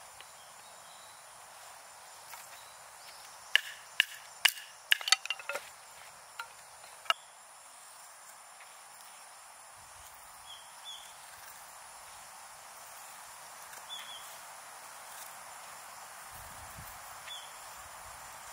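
A cluster of sharp clicks and knocks over a steady hiss, with a few faint, short high chirps later on.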